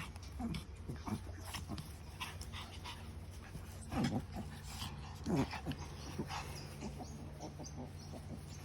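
Pomeranian puppies play-fighting, giving short whines and small growl-like calls with light scuffling clicks; two louder calls come about four and five and a half seconds in.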